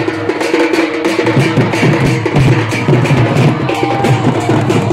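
Loud music of fast, even drumming with held notes sounding over it.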